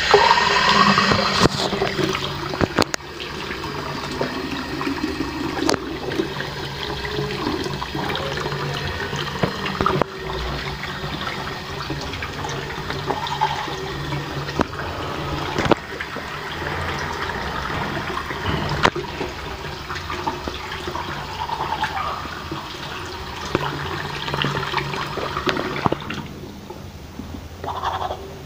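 Water running steadily, mixed with the scrubbing of a toothbrush on teeth; the water stops near the end.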